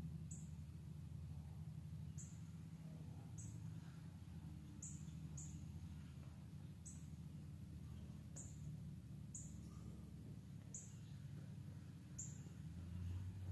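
Faint, short, high chirps repeating at uneven spacing, roughly once a second, over a steady low hum.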